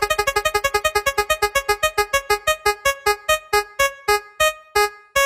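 Spinning-wheel ticker sound effect: a short, bright pitched note repeating rapidly, about eight times a second, and steadily slowing to about two a second as the wheel coasts toward a stop.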